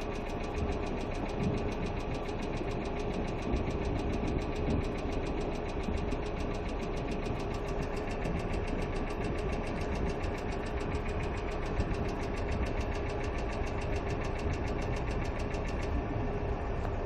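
Hyundai Accent II engine idling with a fast, even ticking from the valvetrain: knocking hydraulic lifters.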